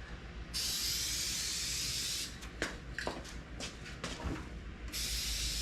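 Aerosol spray-paint can (Dupli-Color Perfect Match) spraying base coat in two bursts, the first about two seconds long and the second about a second and a half, with a few short clicks between them.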